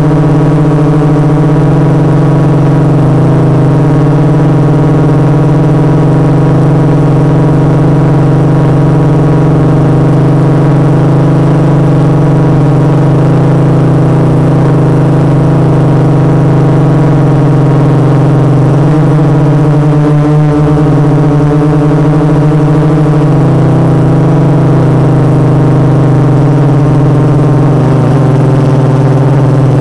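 A 450-size quadcopter's four MultiStar 2212 920kv brushless motors spinning 12-inch carbon-fibre props, heard loud and close on the onboard camera as a steady multi-toned hum while it hovers. The pitch wavers briefly about two-thirds of the way through.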